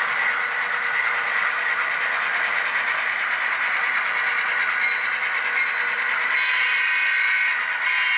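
HO scale model freight train running past, with a steady diesel locomotive sound and rolling-train noise.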